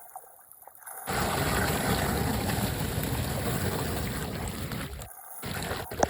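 Floodwater rushing as it drains down a street drain, a steady noisy rush that comes in about a second in and drops away near the end, with one sharp knock just before the end.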